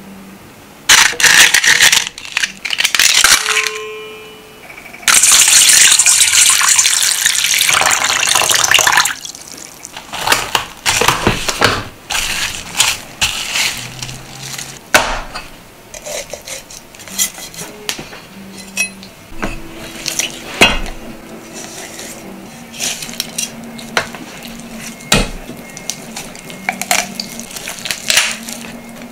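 Kitchen handling sounds: dried kombu crackling and clattering as it is handled, then water poured over it for about four seconds, followed by scattered clinks and taps of the container and dishes.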